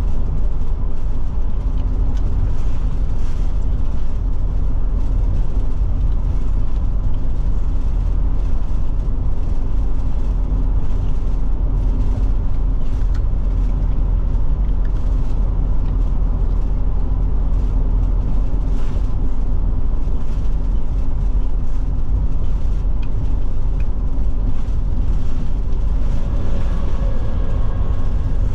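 Steady road and drivetrain noise of a Forest River Forester motorhome being driven, a continuous low rumble.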